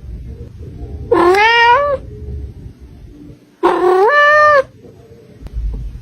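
A kitten meowing twice, each meow rising in pitch, the second longer and ending on a held note.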